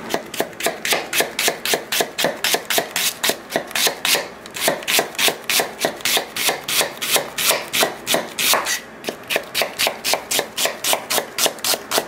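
Chef's knife thinly slicing a half onion on a cutting board: a quick, even run of crisp knocks of the blade on the board, about four a second, with two short pauses.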